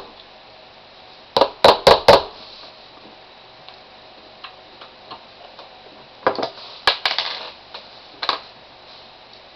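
Sharp metallic taps on a 1911 pistol's mainspring housing pin as it is knocked in: four quick taps about a second and a half in, a cluster of knocks around six to seven seconds, and one more near eight, with faint small clicks between.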